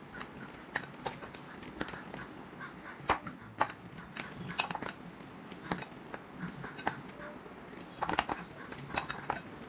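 Spring-loaded ice cream scoop working thick muffin batter: scattered clicks and light taps as the scoop's release lever snaps and the scoop meets the bowl and the metal muffin tin. The sharpest knocks come about three seconds in and around eight seconds.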